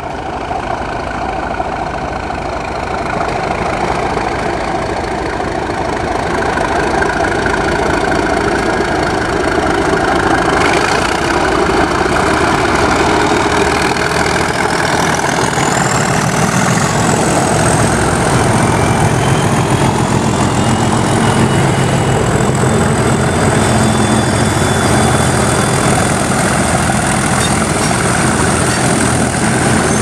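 Several diesel locomotives, led by an English Electric Class 37, thrash at full power as they haul a train away and past. The heavy engine noise grows louder, with the low throb strongest from about halfway. A high turbocharger whistle rises in pitch around the middle and then holds.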